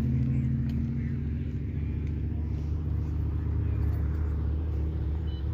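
Car engine idling with a deep, steady exhaust rumble.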